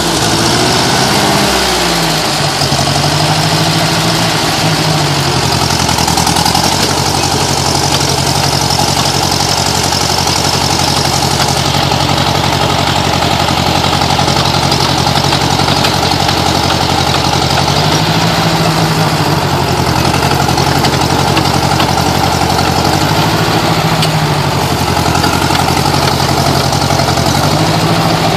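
Old farm tractor's engine running steadily while stuck in mud, revs rising and falling briefly about a second in and several more times later as the driver works the throttle to drive out.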